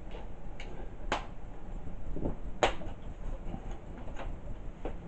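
Plastic snap clips of a laptop screen bezel popping loose one after another as the bezel is pried off by hand. A string of sharp clicks at uneven spacing, the loudest about one and two and a half seconds in.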